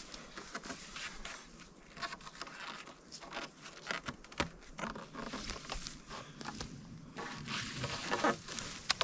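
Irregular rustling and scraping of rope being hauled and wrapped tight around wooden logs to lash them onto a shelter frame, with small knocks and a couple of sharper clicks near the end.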